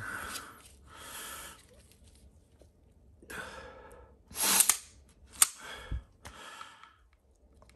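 SIG P229 DAK pistol being checked clear: the slide is worked by hand, giving several short metal-on-metal sliding rasps. About five and a half seconds in there is one sharp metallic click, followed by a dull thump.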